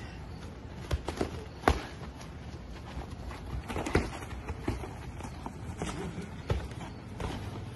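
Boxing gloves landing punches in scattered thuds, mixed with shuffling footsteps on grass; the sharpest hit comes a little under two seconds in.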